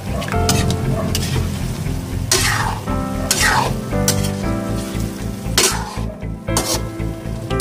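Metal spatula stirring and scraping chicken livers and wings in a metal wok, several separate strokes, with the meat sizzling in soy sauce. Background music with a steady beat plays underneath.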